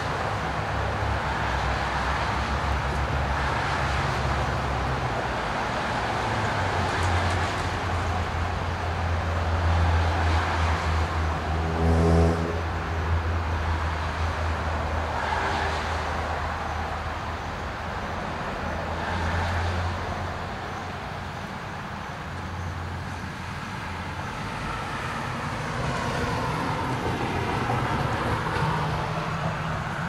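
Steady low rumble of road traffic, rising and falling as vehicles pass, with a brief low droning note about twelve seconds in.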